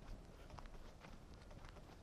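Faint footsteps of a person walking on a dirt trail: soft, uneven steps, a few a second.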